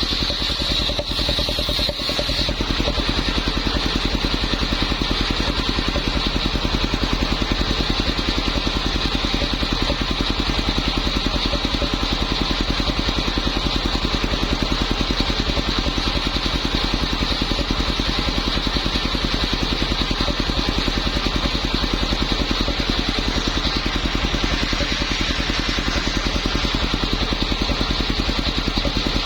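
A small engine runs steadily, driving a homemade circular saw, with a rapid even firing rhythm and a constant high whine on top.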